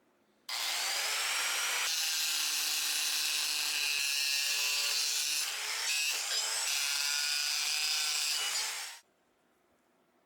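Electric power tool working scrap iron: it starts suddenly, runs steadily with a high, hissing edge for about eight seconds, then stops abruptly.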